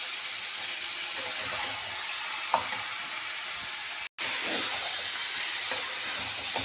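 Masala-coated boiled jackfruit pieces sizzling steadily in a metal kadai, with a metal spatula stirring and scraping through them. The sound drops out for a moment about four seconds in, and the sizzle is louder after it.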